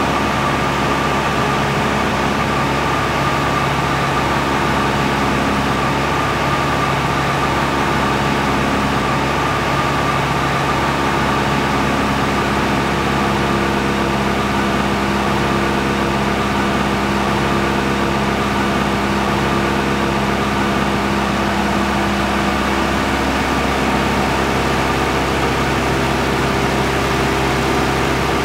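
Aircraft engine running steadily: an even, unchanging hum with several held tones.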